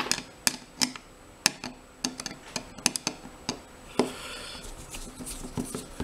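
A Phillips screwdriver that fits the screw loosely is turning a small screw out of a lock cylinder's metal cap. The sound is a run of light, irregular metallic clicks and ticks, with a short scraping rub about four seconds in.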